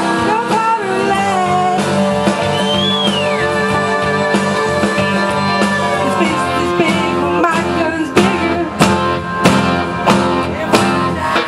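A woman singing into a microphone over a karaoke backing track with guitar, played through a PA speaker. Sharp drum hits stand out in the second half.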